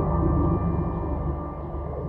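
Ambient background music: sustained notes over a low drone, slowly fading.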